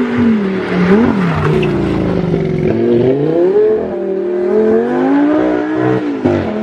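Lamborghini engine revving hard, its pitch rising and falling repeatedly and dropping sharply near the end.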